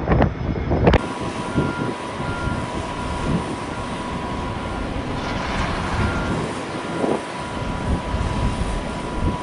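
Jet engines at takeoff power: first an airliner climbing out, then, from about a second in, a twin-engine jet freighter on its takeoff roll, a steady roar with a high whine running through it.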